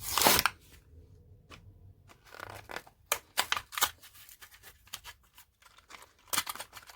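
Hot Wheels cardboard-and-plastic blister package being torn open: a loud rip right at the start, then bursts of short crackling and scratching about three seconds in and again near the end.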